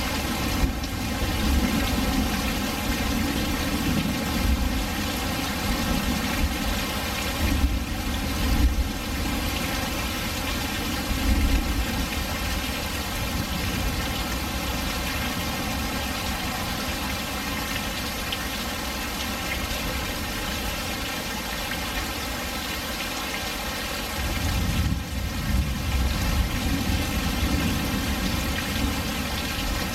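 Steady rain pouring down, its drops splashing on a hard surface, with a low rumble swelling up now and then.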